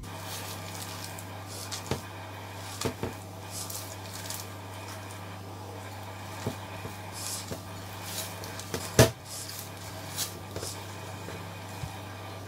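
Hands kneading sticky scone dough in a glass bowl: soft squelching with scattered light knocks against the bowl, one sharper knock about nine seconds in, over a steady low hum.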